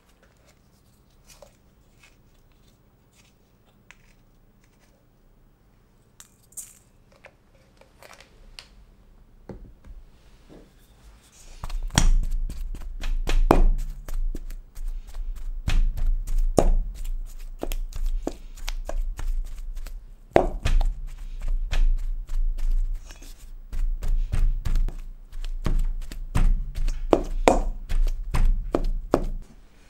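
A wooden pestle repeatedly pounding and mashing boiled taro in a stainless steel bowl, a run of irregular dull thuds that starts about twelve seconds in. Before that, only faint small sounds of gloved hands peeling the boiled taro.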